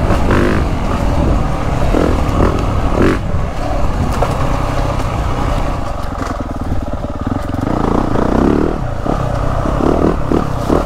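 2023 Yamaha YZ450F's single-cylinder four-stroke engine running as the bike is ridden along a dirt woods trail. It is on a retarded-ignition map that slows its revving to a 350-like feel. A few sharp knocks come through over the engine noise.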